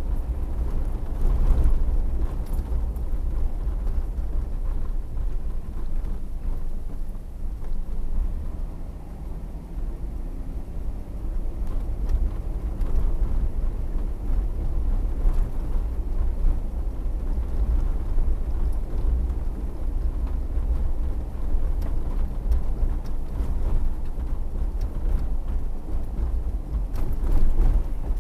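Car driving: a steady low rumble of road and engine noise heard from inside the cabin. It swells briefly about a second and a half in and again near the end.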